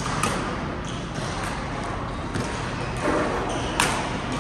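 Badminton rackets striking a shuttlecock: sharp cracks at irregular intervals, several within a few seconds, the loudest near the end.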